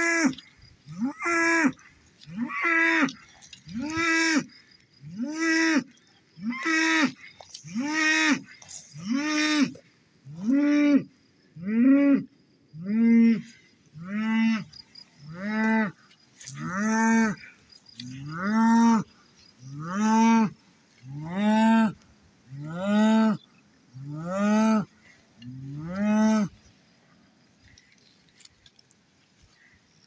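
A cow bawling over and over in a long, regular series of short calls, about one every second and a half, each rising and then falling in pitch. About twenty calls, sinking slightly in pitch as they go on, then they stop a few seconds before the end.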